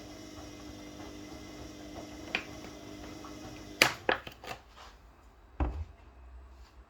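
Kitchen handling sounds: a steady low hum, then a quick run of sharp clicks and knocks from a little under four seconds in, and a single low thump about a second and a half later.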